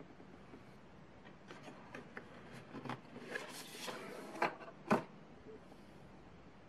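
A cardboard perfume box being handled and its glass bottle slid out: light paper rustling and small clicks, a longer rustle about three seconds in, then two sharp knocks close together near the end, the second the loudest.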